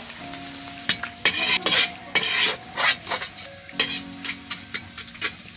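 Dried leftover rice frying and puffing in hot oil in a wok, sizzling, while a metal spatula and ladle scrape and stir it against the pan. A run of sharp scrapes and clatters comes through the middle.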